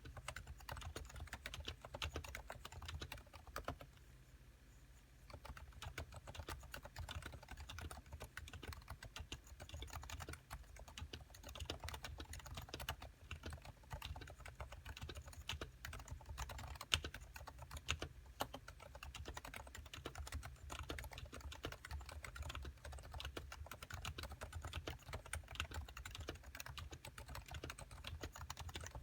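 Continuous fast typing on a Topre Realforce 87USW, a keyboard with silenced 45 g Topre electrostatic-capacitive switches and purple Type-S sliders: a dense stream of soft key clicks, pausing briefly about four seconds in.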